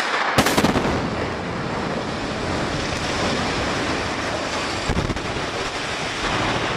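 Explosive demolition charges going off in two sudden blasts, the second about half a second after the first, followed by the long, even rushing rumble of a building collapsing for about six seconds.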